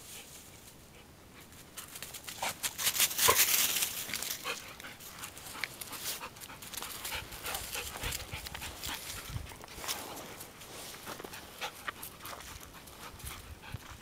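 Entlebucher Mountain Dog panting close by, starting about two seconds in.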